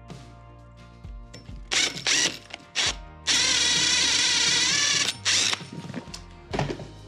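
Cordless drill boring a hole through a wooden guide block into a wooden mirror frame: a few short bursts, then a steady run of about two seconds, then one more brief burst.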